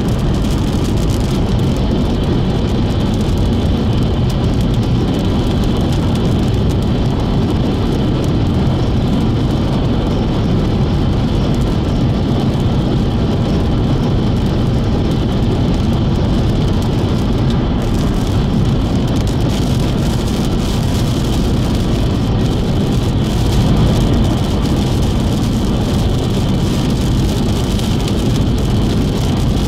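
Steady road noise of a car driving on a wet highway, heard from inside the cabin: tyres on wet pavement and engine, with no sudden events.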